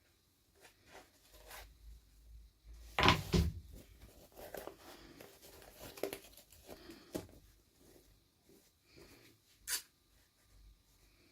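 Small plastic toy packaging and pieces handled during unboxing: scattered light clicks and knocks, a louder knock about three seconds in and a sharp click near the end.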